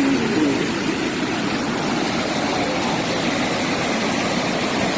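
Lower Falls of the Yellowstone River, a steady rush of water plunging over the brink, heard close up.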